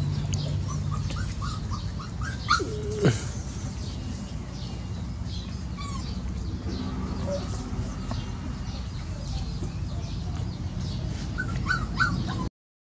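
Puppies giving short high yips and whimpers as they play-fight over a cloth, loudest a couple of seconds in and again near the end, over a steady low hum.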